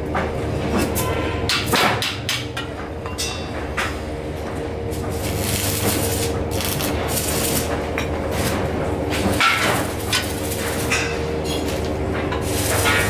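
Stick welding on a steel-tube chair frame, with the arc crackling in spells. Sharp metal knocks and taps on the frame come between the welds, loudest in the first two seconds and again after about nine seconds, over a steady hum.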